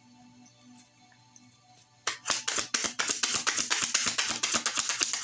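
Tarot deck being shuffled by hand: a rapid, dense clatter of cards that starts suddenly about two seconds in, over faint background music.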